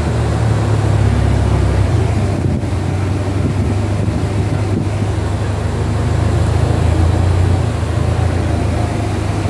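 Vehicle engine running steadily as it drives at low speed, heard from inside the cab as a low, even drone with a haze of road and air noise.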